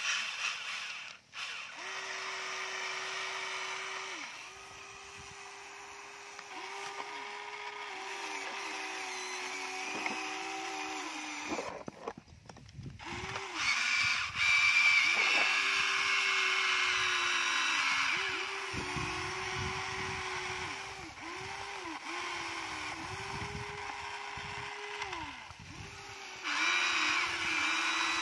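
Huina radio-controlled toy excavator's small electric motors and plastic gearboxes whining as it is operated. Each run holds a steady pitch for a second to a few seconds, and the runs start and stop many times.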